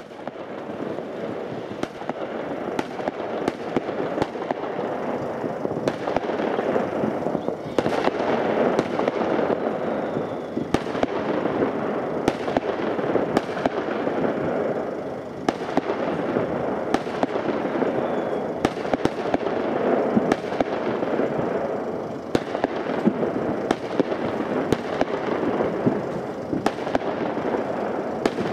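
Many fireworks going off at once: a dense, continuous crackle with frequent sharp bangs.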